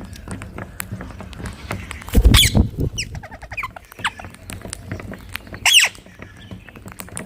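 Rose-ringed parakeets calling: two loud, harsh screeches, one about two seconds in and one near the end, with a quick run of short chattering notes between them and a low rumble under the first screech.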